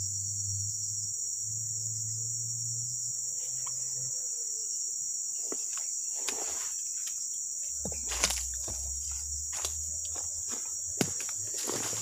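Steady high-pitched drone of forest insects. From about halfway there is rustling and a few sharp knocks, the loudest about eight and eleven seconds in.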